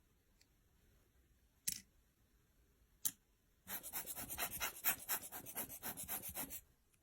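Two sharp clicks, then about three seconds of quick scraping strokes, roughly five a second, which stop suddenly.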